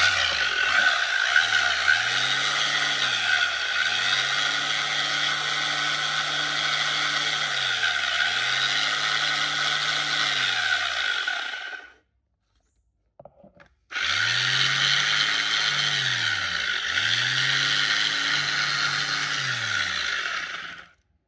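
Hitachi large square-pad orbital sander (100 V, 350 W) switched on for a test run: a steady, high-pitched motor and pad noise. It cuts off suddenly about twelve seconds in, starts again about two seconds later and runs until shortly before the end.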